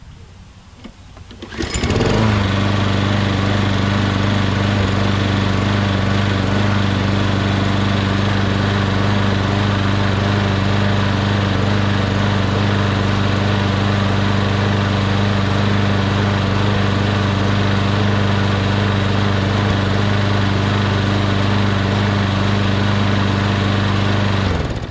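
Briggs & Stratton engine on a walk-behind lawn mower, starting about two seconds in and then running at a steady governed speed with no surging. It cuts off abruptly just before the end.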